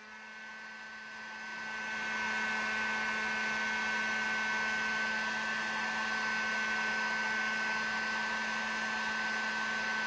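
Electric heat gun running, blowing hot air onto an adhesive-lined heat-shrink sleeve over a crimped copper battery-cable lug. It is a steady blowing hum with a constant high whine; it builds up over the first two seconds, then holds steady.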